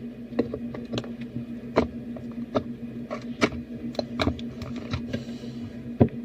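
Irregular sharp taps and clicks of a hard object knocking against a small breakable container while trying to work something out of it, over a steady low hum.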